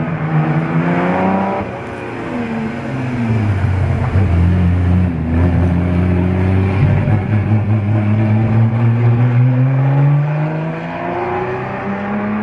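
Maserati A6GCS/53's 2-litre straight-six racing engine accelerating hard as the car drives past. The pitch rises, drops at a gear change about two seconds in, then climbs steadily as it pulls away, rising again near the end.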